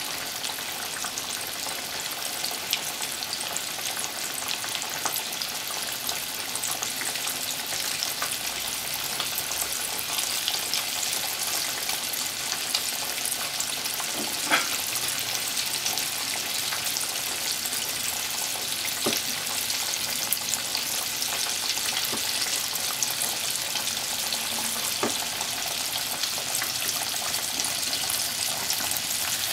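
Breaded pork cutlet (tonkatsu) deep-frying in hot oil: a steady, dense sizzle full of fine crackles, with a few sharper pops now and then.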